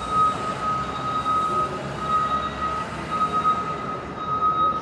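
A steady high whine from machinery, wavering slightly, over a rumble of background noise.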